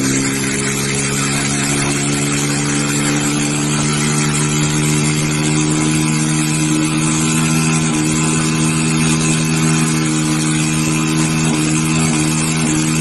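Small motorcycle engine held at steady high revs in a stationary burnout, with the rear tyre spinning and scrubbing on the asphalt.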